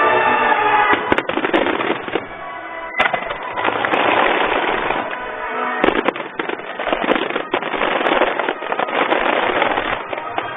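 Aerial fireworks going off in quick succession: sharp bangs over a dense crackle, with show music playing through loudspeakers. The music is clearest in the first second or so.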